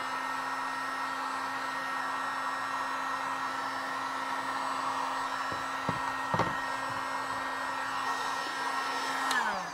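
Cheap Harbor Freight heat gun running steadily, a motor and fan whine over a blowing hiss, then winding down in pitch as it is switched off near the end.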